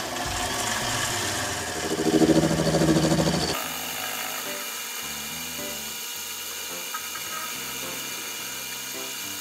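Small 7x12 benchtop metal lathe running, its chuck spinning an aluminum hex bar, with a louder, rougher stretch from about two to three and a half seconds in. Background music plays throughout.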